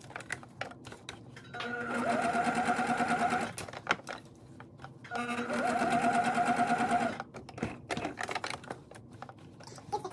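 Electric domestic sewing machine stitching a zipper onto knit t-shirt fabric, running in two bursts of about two seconds each, the motor speeding up at the start of each run. Between the runs come soft clicks and rustles of the fabric being handled.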